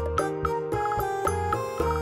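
Background music: a light, bouncy tune with a bass line and quick struck or plucked notes about four a second.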